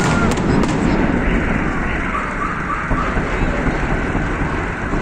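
Large fireworks salute: a few sharp cracks of shells bursting near the start, then a dense, continuous rumble of many shells going off together.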